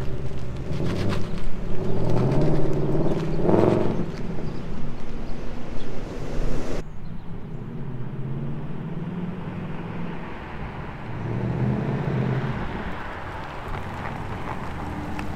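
2020 Ford Mustang Bullitt's 5.0-litre V8 exhaust as the car drives off, its note rising and falling. About seven seconds in, the sound cuts to a quieter, steadier engine note that swells as the car comes closer.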